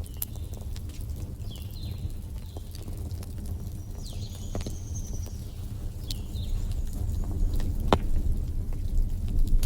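Wood fire burning in a fireplace: a steady low rumble with scattered crackles and pops, the sharpest about eight seconds in. Short high falling chirps recur every second or two.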